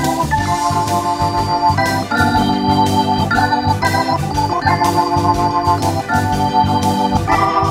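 Nord Stage 2 stage keyboard played with a Hammond-style organ sound: chords held and restruck in the right hand over changing bass notes in the left.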